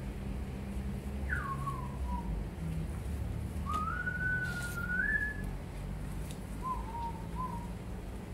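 Three whistled phrases. The first is a quick falling slur about a second in. The second, a few seconds in, is a longer note that rises and wavers. The third, near the end, is two short low notes. A steady low rumble sits beneath them.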